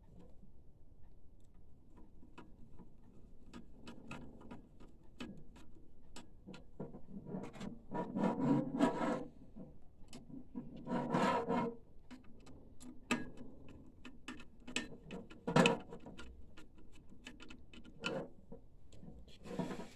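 Irregular small clicks and ticks of screws and small parts being handled and fitted back into a printer chassis, with several louder rubbing scrapes at intervals.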